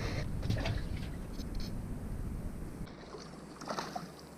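Handling noise in a small fishing boat: a low rumble with a few light knocks and clicks, the rumble cutting off abruptly about three seconds in.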